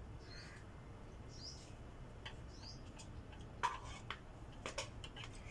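Faint clinks and taps of a spoon and chopsticks against plates and a pot during a meal, scattered from about two seconds in, the loudest near the middle. Faint high chirps sound in the first half.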